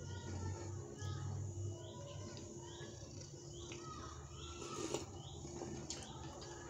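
Quiet mouth sounds of a man eating gingerbread, with a sip of tea from a mug about five seconds in. Faint, repeated high bird chirps run in the background.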